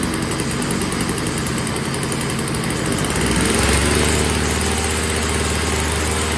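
Yard Machines single-stage snowblower's small two-stroke engine running on freshly mixed 50:1 fuel. About three and a half seconds in its note changes and settles into a steady hum.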